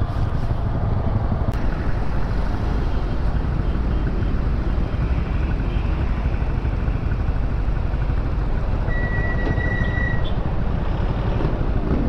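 Riding noise from a Honda CB150R motorcycle in city traffic: a steady rumble of engine and wind on the bike-mounted camera, with surrounding cars and trucks. A brief high whine sounds about nine seconds in.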